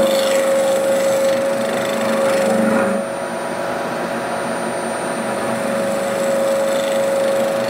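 Bridgeport milling machine running with a face mill, taking a light skim cut off a mild steel plate. A steady whine sits over a rough cutting noise, which eases about three seconds in.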